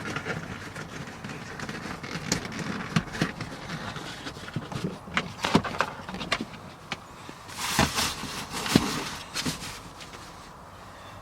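Handling noise from fitting a nylon seat cover on a truck seat: fabric rustling and being pulled, with scattered clicks and knocks, and a longer rustle about eight seconds in.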